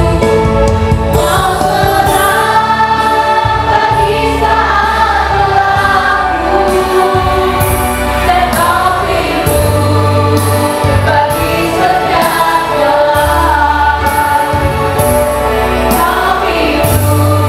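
Music: a choir singing over instrumental backing with a bass line and a steady drum beat.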